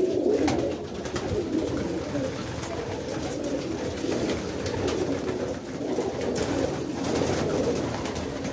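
Domestic pigeons cooing together in a loft, many calls overlapping into a steady, unbroken sound.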